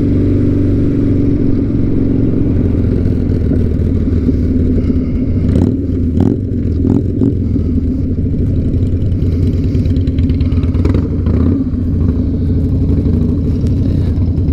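Two motorcycles running while riding in town: the BMW R100's boxer twin close by, and the 2007 Harley-Davidson Night Train's V-twin exhaust just ahead. The drone is steady, with a few short clicks around the middle.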